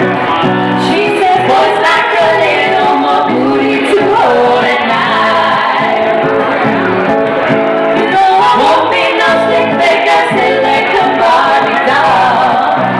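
Three women singing a song together in close harmony, live, to acoustic guitar accompaniment. The recording is muffled and of poor quality.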